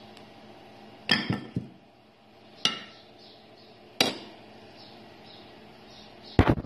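Kitchenware being handled: sharp knocks and clinks of dishes and utensils. A short cluster comes about a second in, single knocks follow near the middle, and the loudest clatter comes near the end.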